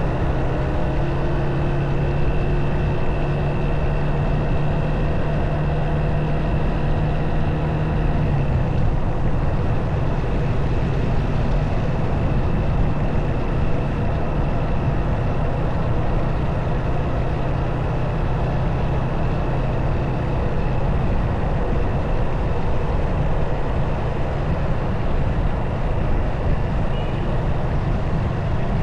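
Motorcycle engine running steadily while riding, under a constant rush of wind and road noise. The engine's steady hum eases off about eight seconds in.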